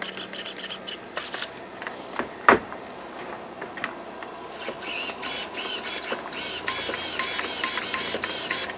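Hobby RC servos on a nitro buggy being worked from the transmitter. In the second half they give a rapid string of short rising-and-falling whines, after light clicks and a single knock about two and a half seconds in.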